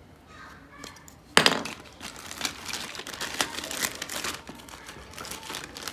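Clear plastic packaging bag crinkling as hands open it to take out the phone holder. It starts with a sharp rustle about a second and a half in, then keeps crackling irregularly and grows fainter near the end.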